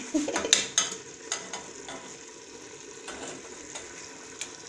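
Metal cookware, an aluminium cup and a pot, clinking and knocking together a few times in the first second and a half, then a steady faint hiss from the stovetop.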